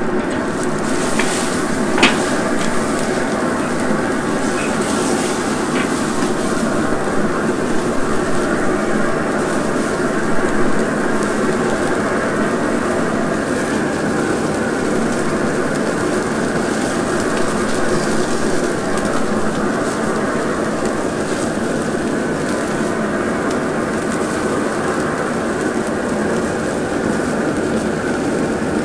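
Tomahawk steaks sizzling on the grate of a Recteq RT-B380 Bullseye pellet grill over a flaring grease fire: a steady, dense sizzle and crackle of burning fat. A few sharp clicks come in the first six seconds, the loudest about two seconds in.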